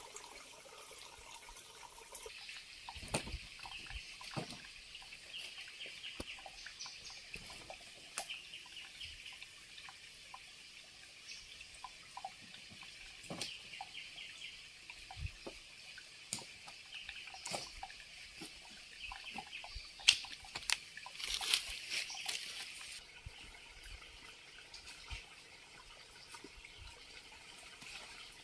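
Faint trickling water with scattered clicks and knocks, and a louder rustling noise about twenty-one seconds in.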